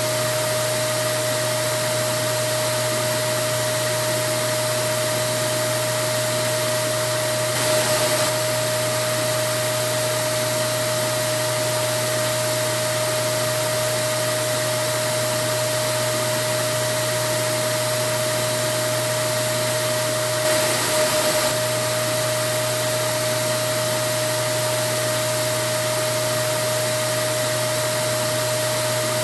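Vacuum cleaner running steadily: an even rushing hiss with a constant motor whine, briefly a little louder about eight seconds in and again about twenty-one seconds in.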